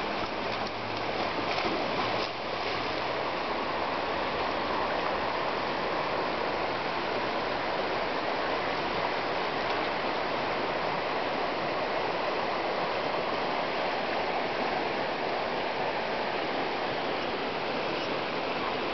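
River water flowing, a steady, even rush of water noise.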